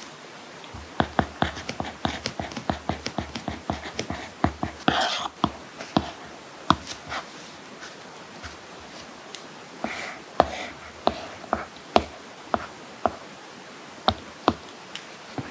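Apple Pencil tip tapping on an iPad Pro screen under a matte paperlike protector: quick runs of sharp clicks in the first half, then scattered single taps. A brief rasp comes about five seconds in, and another about ten seconds in.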